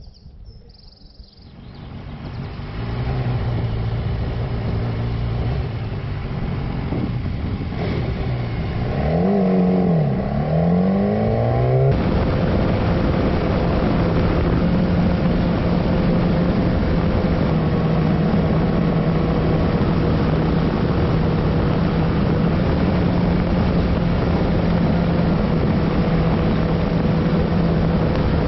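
Motorcycle engine pulling away and running on, its pitch falling and rising through gear changes and throttle about ten seconds in. Then, after an abrupt change, it holds a steady note at cruising speed under a constant rush of wind and road noise.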